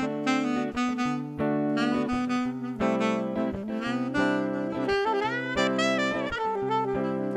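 Eastman alto saxophone playing an improvised melody: held notes and quicker phrases, with pitch slides between notes about halfway through and again near the end.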